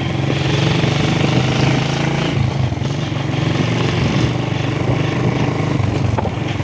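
Small motorcycle engine running steadily at riding speed, a constant low hum, with wind rushing over the microphone.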